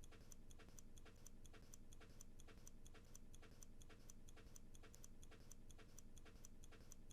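Faint, steady ticking of a clock, about three ticks a second, marking time passing during a wait.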